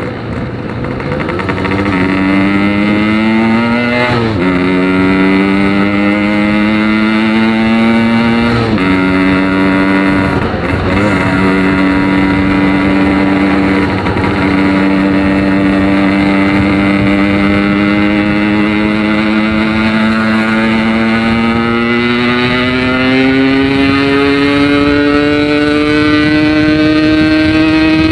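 Yamaha RX King's 135cc single-cylinder two-stroke engine through a Packing Power PK2 aftermarket exhaust, loud, on the move: engine pitch climbs and drops sharply twice in the first nine seconds as gears are shifted, then holds steady and slowly rises again toward the end.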